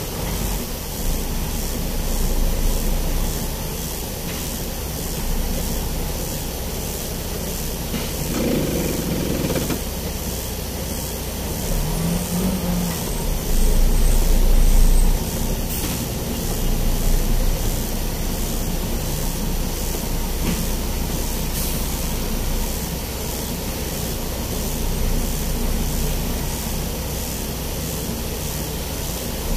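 Truck engine running at low speed, heard from inside the cab as it rolls slowly, over a steady hiss. The low rumble swells louder for about a second around halfway through.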